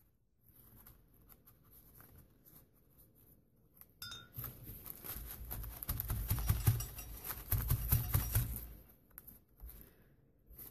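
Paintbrush strokes lightly scratching on paper, then from about four seconds in a louder stretch of hands rubbing and patting a wet painted page, with paper rustling and dull bumps on the tabletop.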